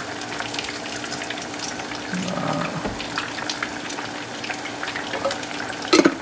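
Fish frying in oil in a skillet: a steady sizzle full of scattered crackles and pops. One sharp knock sounds near the end.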